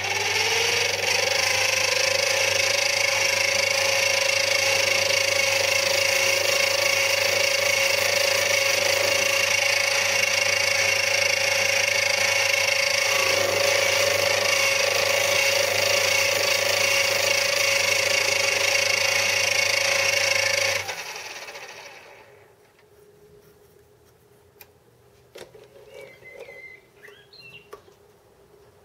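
Small bench metal lathe running: the motor spins up with a whine that rises in pitch for about a second, then runs at a steady speed with a low hum underneath. It is switched off about 21 seconds in and winds down within a second.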